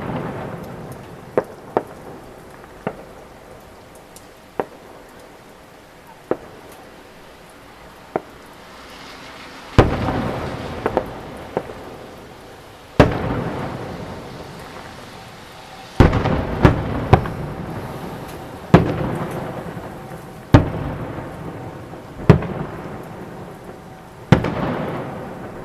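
Fireworks salute shells bursting: a few small cracks in the first eight seconds, then heavy booms every two to three seconds. Each boom is followed by a long rolling rumble, like thunder.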